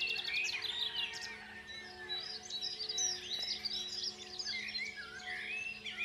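Several songbirds singing and chirping at once in a dawn chorus, with a fast trill in the first second. Under them runs a soft steady drone of held low tones.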